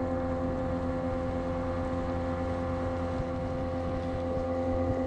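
Outboard motor running at a steady speed, driving an inflatable boat along, heard from aboard the boat: an even hum at a constant pitch, with no revving.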